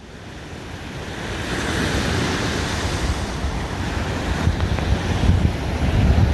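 Ocean surf washing onto a sandy beach, with wind gusting on the microphone in low rumbles. It fades in over the first two seconds.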